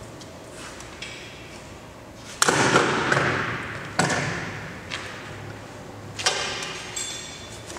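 Three loud metallic bangs on a roller shutter door's aluminium frame and guide rail, each ringing out for a second or more, about a second and a half to two seconds apart, with small clicks of handling between them.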